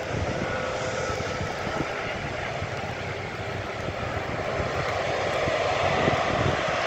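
Airbus A330-300 freighter's jet engines running at taxi power: a steady rushing whine that grows slightly louder as the aircraft moves along the taxiway.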